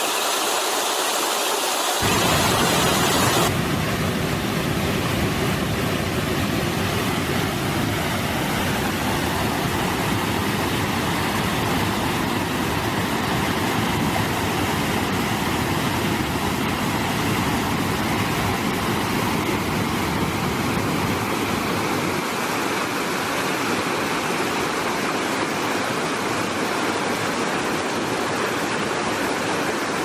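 Waterfall rushing: a loud, steady wash of falling water. Its tone shifts at a couple of points in the first few seconds, and the deep low rumble thins out in the last third.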